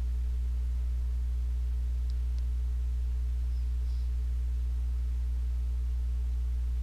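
Steady low electrical hum with a buzz of evenly spaced overtones, mains hum left on the audio track, unchanging throughout.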